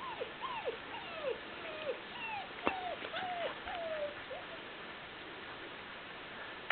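Puppies whining and yelping in quick, short cries that fall in pitch, two or three a second, during rough play; the cries die away about four and a half seconds in.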